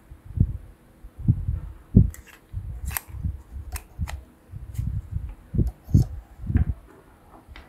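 Handling noise: irregular dull low thumps from hands moving the flash unit, with a few small sharp clicks as the old Leica flash's battery housing is fitted together.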